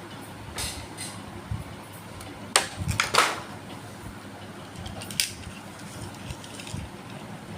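Scattered clicks and clacks of toy cars and their plastic packaging being handled, with a quick cluster of sharper clicks about two and a half to three seconds in and another single click past the five-second mark.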